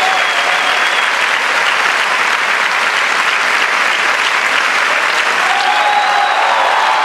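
Theatre audience applauding: dense, steady clapping that does not let up.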